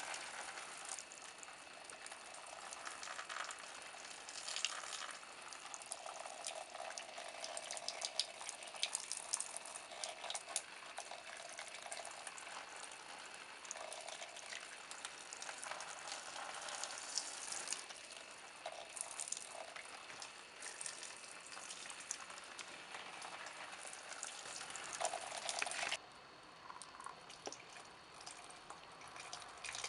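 Wine trickling and dripping from a soaked plaster-bandage sculpture into a plaster goblet: a steady fizzing, crackling patter of liquid with many small drop ticks. It turns quieter a few seconds before the end.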